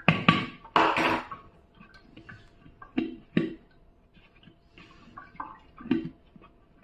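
Wet wheat dough being squeezed and mixed by hand in a clay bowl: irregular wet squelches and slaps. The loudest come in a cluster in the first second or so, then a few more spaced out.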